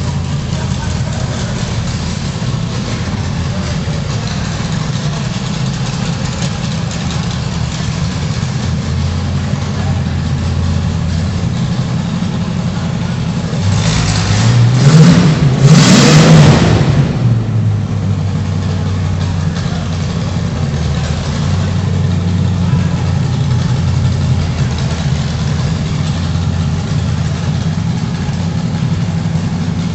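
Lawn mower engine running steadily, revved up and back down once about halfway through.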